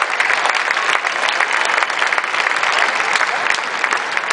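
Spectators in a sports hall applauding, many hands clapping at once, greeting a point just won in a table tennis match.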